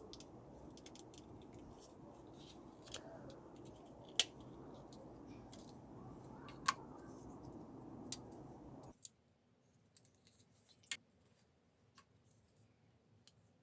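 Faint, sparse sharp clicks of small hand tools and a basic mobile phone's plastic casing being opened, a handful of separate clicks a second or more apart.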